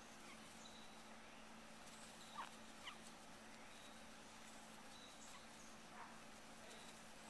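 Near silence: faint room hiss with a low steady hum, broken by two brief faint high squeaks about two and a half and three seconds in.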